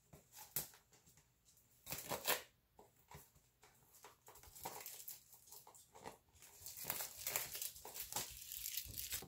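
Plastic wrapping on a cardboard kit box crinkling as it is handled and opened, in irregular bursts, busiest about two seconds in and again over the last few seconds.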